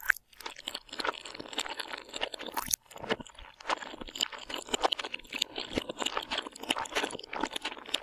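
Food being bitten and chewed with loud, irregular crunching and crackling, with a few sharper snaps among the crunches.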